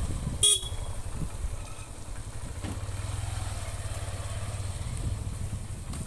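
A motor vehicle engine running with a steady low rumble. About half a second in there is one brief, sharp, high-pitched sound, the loudest moment.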